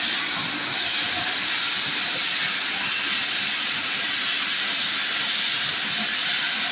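Pet food extrusion production line machinery running: a steady, even hiss with no breaks or rhythm.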